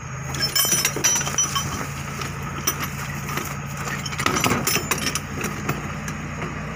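Repeated metallic clinks and taps of a wrench and sling shackles against an excavator's hydraulic control valve block, over the steady hum of an idling engine.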